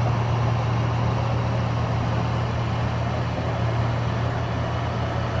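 Bulldozers' diesel engines running steadily, a constant low drone.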